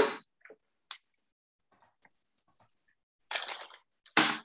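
A spoon knocking and scraping as canned white beans are spooned into a blender jar: a sharp knock right at the start, a few faint clicks, a short scrape about three seconds in, and another sharp knock near the end.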